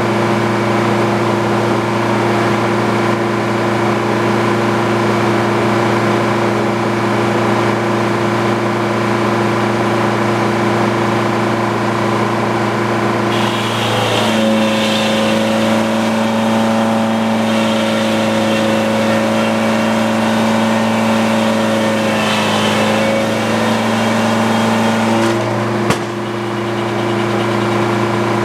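Engine driving a Frick sawmill running steadily. About halfway through its note shifts and a higher rasping noise joins for about twelve seconds, as the blade works through a cut. A sharp click comes near the end, and the engine goes back to its earlier note.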